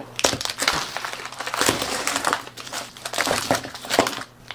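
Vacuum-sealed plastic bags of frozen zucchini crinkling and knocking as they are handled and laid out on a wooden cutting board, a run of rustles with sharp knocks in between.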